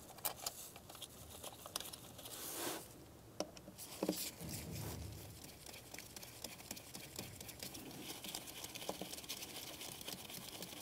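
Phillips screwdriver turning the small retaining screw into a car's MAP sensor by hand: faint, scattered ticks, scraping and rustling.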